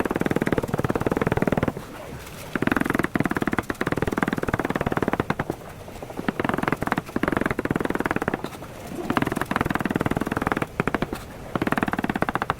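Cabbage being sliced with a knife at very high speed, rapid strokes on a cutting board in bursts of one to two seconds with short pauses between them.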